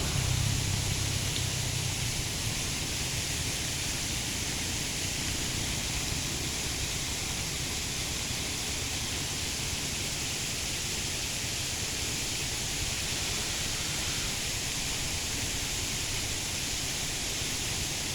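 Steady outdoor background noise: an even hiss with a low rumble beneath, unchanging throughout.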